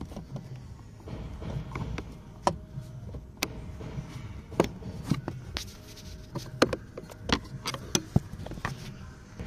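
Irregular sharp clicks and knocks, about a dozen, from a screwdriver and a plastic wiring connector being handled against a Mazda 5's plastic heater housing under the dashboard, over a low rumble. The loudest knocks come about six and a half and eight seconds in.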